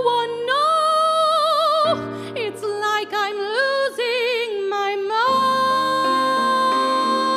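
Solo female voice singing a slow torch song with wide vibrato, accompanied by grand piano. About five seconds in she settles into one long held note.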